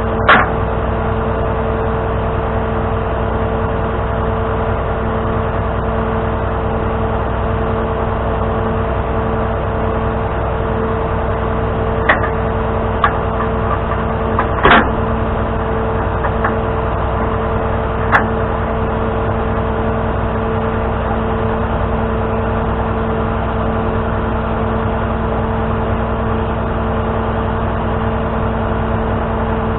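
Tow truck's engine running at a steady, unchanging speed, broken by a few short sharp clicks or knocks: one at the start, a cluster about halfway through, and one a little later.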